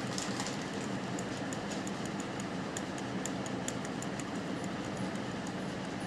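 Small screwdriver tip scraping and ticking against the metal pins of a computer mouse's button microswitch, giving rapid, irregular light clicks over a steady low hum.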